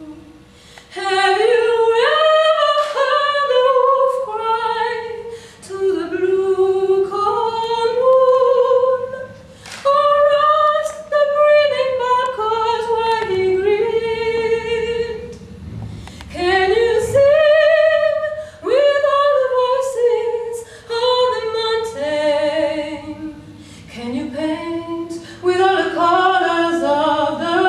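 A woman's voice singing a melody unaccompanied, in phrases of a few seconds separated by short breaks.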